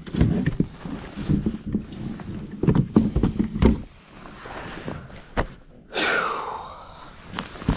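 Kayak pedal drive with flipper fins being pulled out of its hull well, giving irregular plastic knocks and clunks, with a brief scrape about six seconds in.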